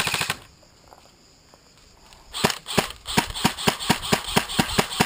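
Airsoft rifle firing: a short rapid burst right at the start, then, about two and a half seconds in, a run of about fifteen quick shots at roughly six a second.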